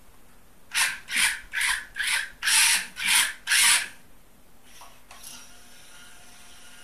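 A construction-kit robot crane's gear motor driven in seven short bursts from its wired remote, a grinding rasp from the gear train on each burst, about two a second. A faint steady whir follows near the end.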